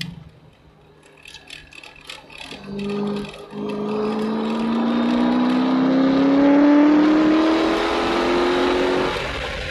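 Corvette C6 Z06 V8 heard from inside the car, lapping a track. The engine goes quiet off the throttle while slowing for a tight corner, then pulls out of it at full throttle with a steadily rising pitch for about six seconds, and the pitch drops near the end at an upshift.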